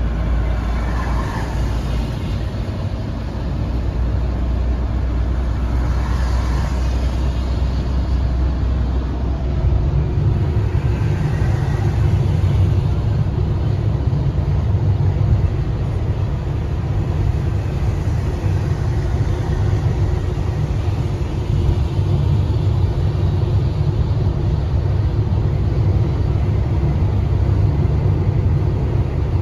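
Road noise heard from inside a moving car: a steady low rumble of engine and tyres on a wet, slushy road. About ten seconds in, the low hum shifts slightly higher in pitch.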